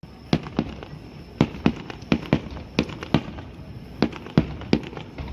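Fireworks shells bursting in a rapid, irregular string of sharp bangs, about a dozen in five seconds, each with a short echoing tail.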